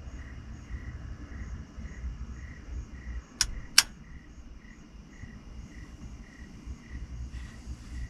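Crickets chirping in a steady pulsing rhythm, about two chirps a second. Two sharp clicks come about half a second apart midway through, the second louder.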